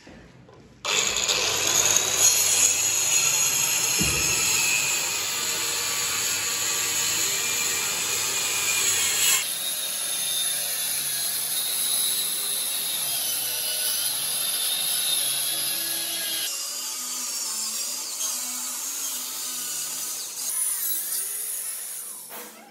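Handheld electric circular saw starting up about a second in and cutting a long straight line through a plywood sheet, running steadily under load and dying away near the end as the cut is finished.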